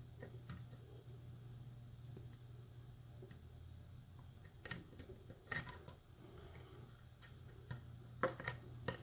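Scattered faint metallic clicks and taps of a lock pick setting pins in a pin-tumbler challenge lock under tension, a small cluster a little past the middle and another near the end, over a low steady hum.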